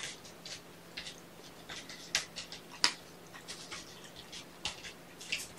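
Scattered light clicks and scratches, irregular and unevenly spaced, the sharpest about three seconds in: handling noise as a small kitten is held and given eye drops.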